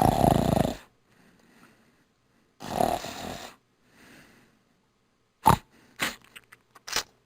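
Snoring: two loud snores, one at the start and another about three seconds in, each followed by a softer, fainter breath. A quick run of short, sharp sounds comes near the end.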